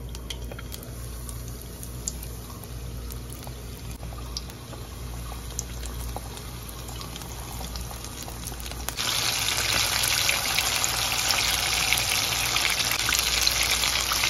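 Coated chicken pieces deep-frying in hot oil: a bubbling, crackling sizzle with scattered pops. It becomes much louder and denser about nine seconds in.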